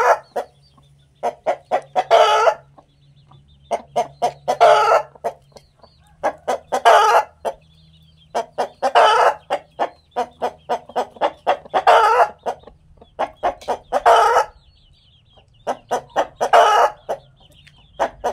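Rooster cackling over and over: each phrase is a run of quick clucks, about five a second, ending in one longer, louder squawk, repeated about every two and a half seconds, some eight times.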